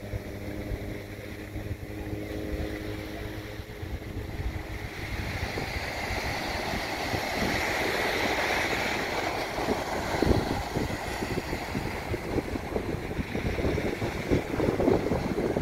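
Small ocean waves breaking and washing up on a sandy beach, the surf growing louder a few seconds in, with wind rumbling on the microphone. A faint steady hum sits under it at first.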